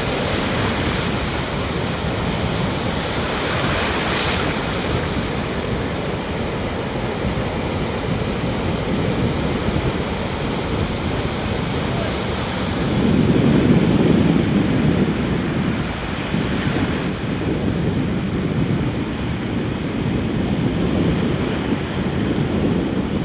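Rough sea surf breaking on the shore in the strong wind of an approaching cyclone, with wind buffeting the microphone. A bigger wave surges louder about two-thirds of the way through.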